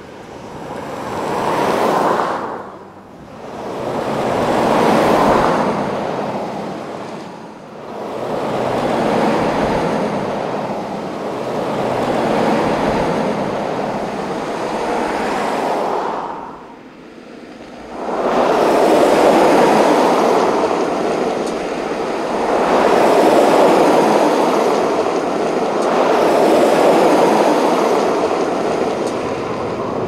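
Freeway traffic: cars passing one after another, each a swell of tyre and engine noise that rises and fades away, about seven passes, with a short lull a little past the middle.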